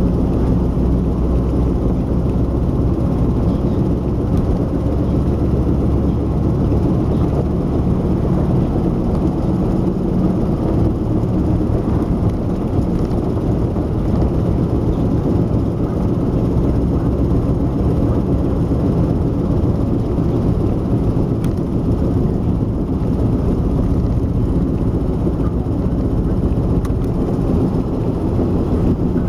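Steady in-cabin driving noise of a GAZ M-20 Pobeda, with its rear axle's cyclic hum that rises and falls with road speed, even on overrun, and which the owner likens to a steam locomotive.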